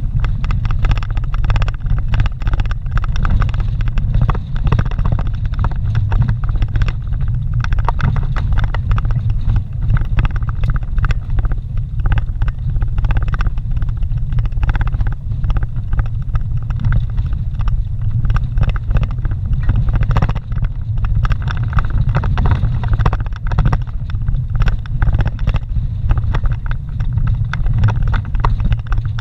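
Vehicle driving slowly over a dirt road, heard from inside the cabin: a steady low engine and tyre rumble with frequent small knocks and rattles from the rough surface.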